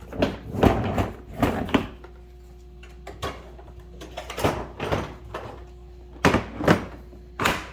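A series of sharp knocks and clunks, several in quick pairs, from the Milwaukee M18 shop vacuum and its newly bolted Packout adapter plate being handled and set down, with a faint steady hum between them.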